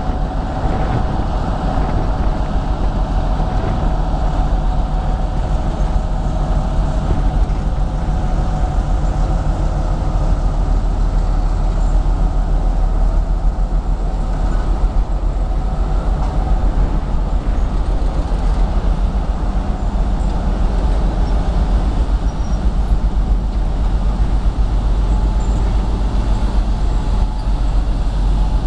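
Two-section 2M62 diesel locomotive passing close by, its two-stroke 14D40 diesel engines running with a steady low rumble and a whine that fades about two-thirds of the way through as the sections go by. Snowplow cars follow, with a few sharp clicks near the end.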